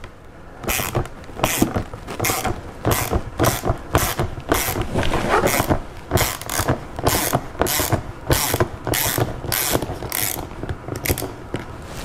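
Hand ratchet on a long extension with a Torx T30 bit, clicking in short bursts about twice a second as it is worked back and forth to back out a large screw.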